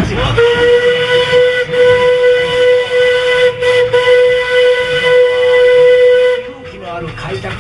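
Steam locomotive whistle blowing one long, steady single-pitched blast of about six seconds, cutting off near the end.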